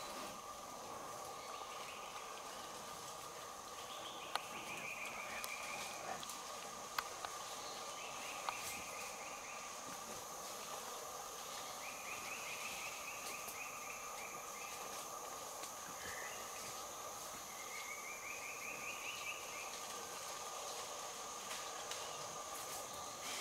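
Equatorial rainforest ambience: a steady insect chorus at two pitches, one middle and one high, with a short buzzy trill near 2–3 kHz repeating about every three to four seconds. A few sharp ticks come between about four and nine seconds in.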